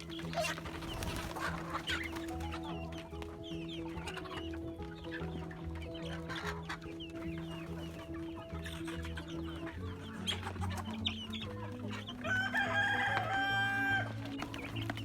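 Chickens clucking, with a rooster crowing once near the end, the loudest sound, over steady background music.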